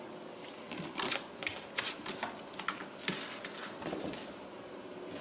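Ragdoll kittens scratching and batting at a cardboard cat house: irregular light clicks, taps and scrapes of claws on cardboard.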